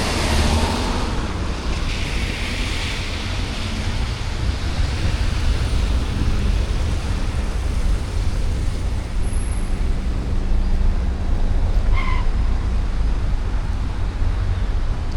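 City street traffic noise: a steady hiss of vehicles with a strong low rumble. A short high-pitched beep comes about twelve seconds in.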